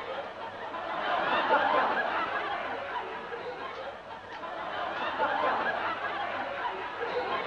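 Audience laughter rising and falling in waves, swelling early, dipping about halfway through, then building again.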